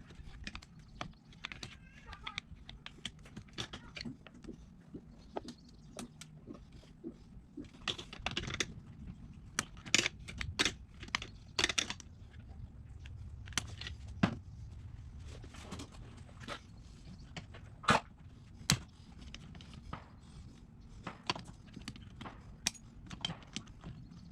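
Hand tools and metal carburetor parts clicking and knocking irregularly while a motorcycle's carburetors are worked on and taken off, over a low background hum.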